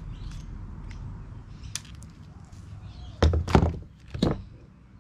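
Handling noise from fishing gear being moved about, with a small click, then three heavy thuds a little past the middle, the first two close together.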